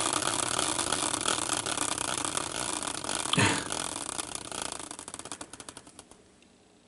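Hand-spun prize wheel clicking rapidly as it spins, the clicks slowing and spacing out until the wheel comes to rest about six seconds in. A brief sliding squeak comes about three and a half seconds in.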